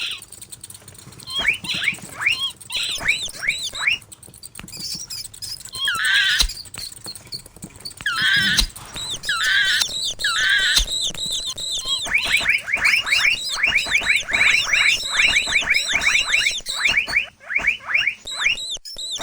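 Mouse squeak sound effects: short, high chirps sliding downward. A few come scattered at first, then several longer wavering squeaks follow in the middle, and near the end a rapid run of chirps comes several a second.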